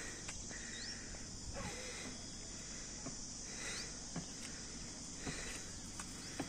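Steady high-pitched insect chorus, with a second, lower buzz that swells and fades about every second and a half.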